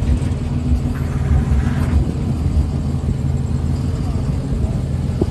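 Steady low rumble of a moving vehicle's engine and road noise.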